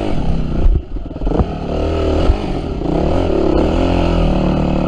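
Yamaha WR250F dirt bike's single-cylinder four-stroke engine revving up and down under throttle on a trail. It drops briefly about a second in, with a few sharp knocks and clatter from the bike.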